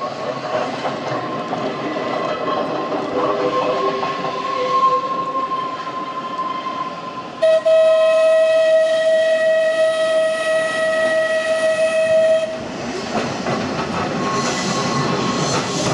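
Manx Electric Railway tramcar with a short goods train, its wheels running and faintly squealing on curved track. About halfway in, a loud steady horn note sounds for about five seconds and stops suddenly, then the wheel noise goes on.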